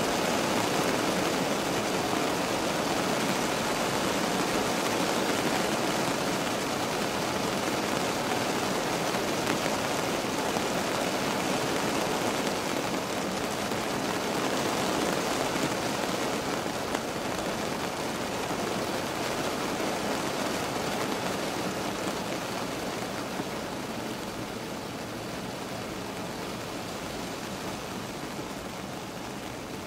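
Steady rain on a car's roof and windows, heard from inside the cabin as an even hiss, growing a little quieter over the second half.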